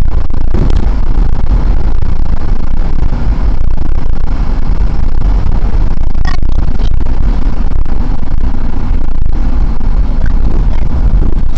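Loud, steady rumble of a car driving, heard from inside the cabin, mostly deep low-end road and engine noise. A short sharp sound cuts through about six seconds in.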